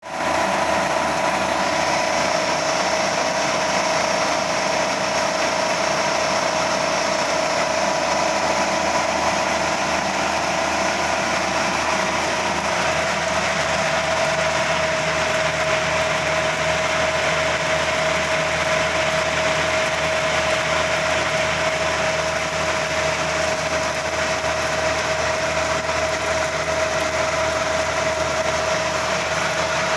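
Grain mill machine running steadily: a constant motor hum with a steady whine over a broad rushing noise, unchanging throughout.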